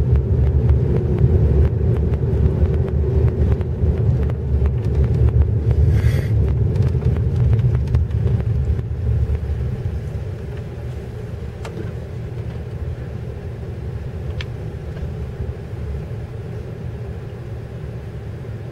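Car driving, a steady low road and engine rumble that eases off about halfway through as the car slows down.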